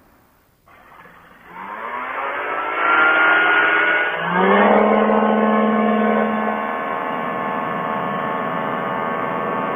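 Quicksilver ultralight's engine and pusher propeller throttling up for a takeoff run, with the prop balancer removed to test for excess vibration. The pitch climbs about a second and a half in, dips briefly around four seconds, climbs again and then holds steady.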